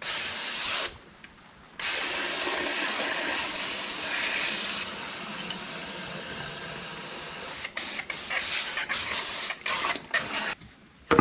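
Garden hose spray nozzle jetting water into an open patio floor drain to flush it out. A short spray, a pause of about a second, then a long steady spray that breaks into short spurts and stops near the end.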